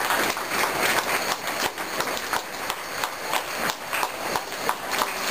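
Team of draft horses trotting while pulling a wagon: a run of sharp, uneven hoofbeats, several a second.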